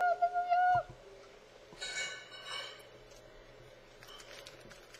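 A boy's voice holds one sung note for under a second, then faint crinkling and small clicks as an opened foil Pokémon booster pack is handled.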